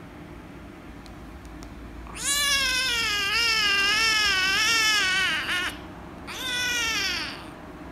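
Young kitten meowing loudly while being stroked on the head: one long meow with a wavering pitch about two seconds in, then a shorter meow falling in pitch near the end. The owner takes the meowing for annoyance at being petted.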